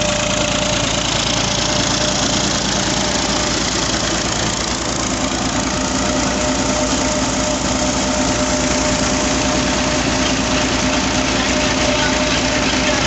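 Massey Ferguson 240 tractor's three-cylinder diesel engine running steadily while it drives a flour mill through its PTO shaft and a flat belt. A second steady tone joins about five seconds in.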